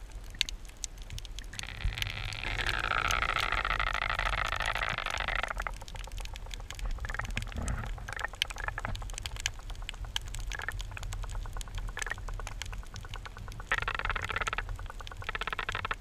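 Underwater sound picked up by a camera in a waterproof housing: a constant crackle of sharp clicks, with a louder buzzing rattle from about two to five seconds in and again near the end.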